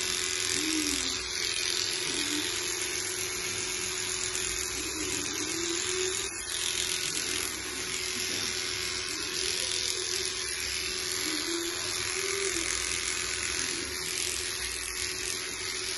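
Electric dog grooming clippers running with a steady buzz as they clip a Welsh Terrier's wiry coat on the cheek and throat.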